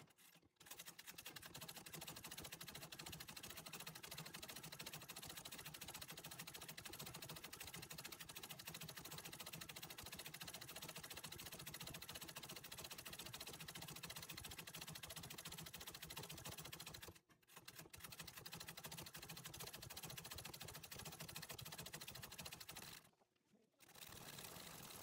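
Antique treadle sewing machine stitching fast and steadily while embroidering a satin-stitch rose. It stops briefly twice, about two-thirds of the way through and again shortly before the end, then runs on.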